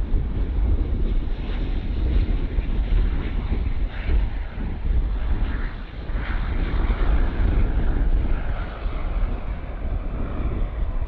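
Jet airliner engines running loud and close, a deep rumble with a whine on top that wavers in pitch.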